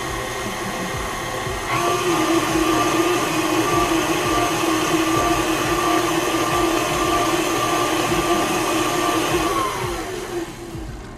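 KitchenAid Classic Plus stand mixer running, its flat beater creaming butter, sugar and eggs in a stainless steel bowl. About two seconds in the motor picks up speed into a steady whine, and near the end its pitch falls as it winds down to a stop.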